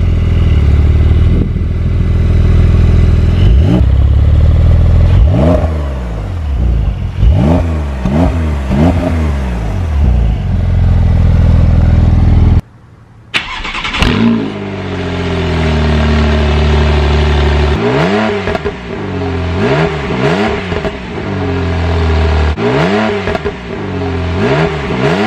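Porsche 911 (992) twin-turbo flat-six idling and being blipped repeatedly through its sports exhaust in Sport Plus mode, each rev rising and falling quickly. After a short break about halfway through, more quick revs follow with a different sound, from a second car's twin tailpipes.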